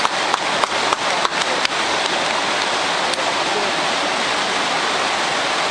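Fast-flowing river water rushing over rapids, a steady hiss, with a few sharp splashes in the first second or two as people wade through it.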